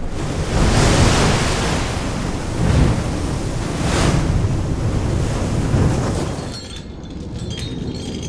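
Heavy wash of water surging and splashing in several swells as a side-launched ship's hull drops sideways into the water and throws up a wave. It eases off about six and a half seconds in.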